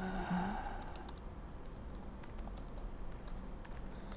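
Laptop keyboard keys being typed, a quiet irregular run of short clicks.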